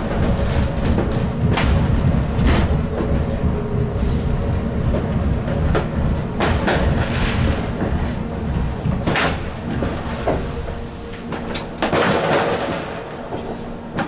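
Stadtbahn light-rail car rumbling along the track, the rumble easing as it comes to a stop. New Year's firecrackers bang sharply outside throughout, with a loud crackling burst near the end.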